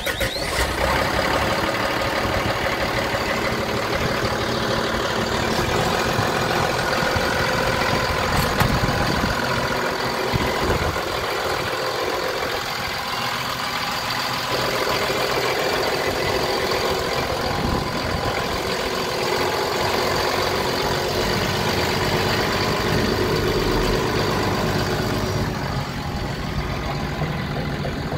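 Hyundai Robex 220LC-9A excavator's diesel engine running steadily, heard close up at the open engine compartment.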